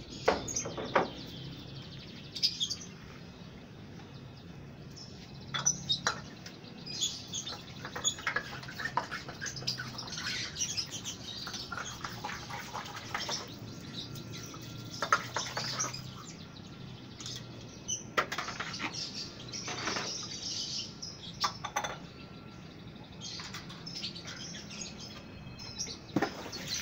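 Many caged lovebirds chirping and calling over one another in short, high, overlapping bursts, with a few sharp knocks among them.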